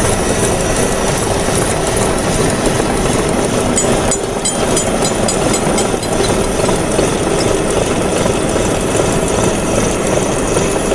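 Milling machine's face mill cutting across a metal block in a vise: a steady, dense machining noise with a faint hum under it, and a brief patter of light high ticks about four seconds in.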